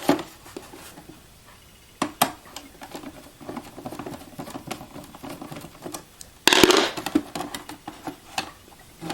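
Phillips screwdriver backing the last screw out of the counterfeit detector's housing: small clicks and ticks of the driver and screw, with a louder short clatter about six and a half seconds in.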